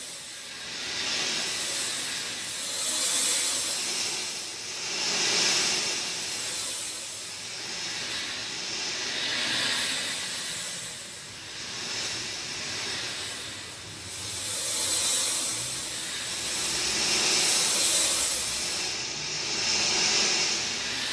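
Heavy rain falling, an even hiss that swells and fades in waves every couple of seconds.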